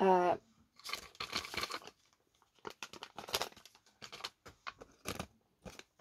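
Small oil bottles and paper being handled on a tabletop: a short rustle about a second in, then a scatter of light clicks and taps.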